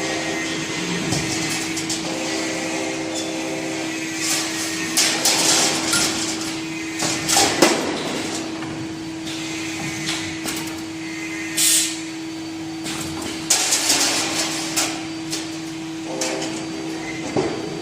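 Automatic wire-bending and welding machine for metal hangers running: a steady hum under irregular clanks and short hisses.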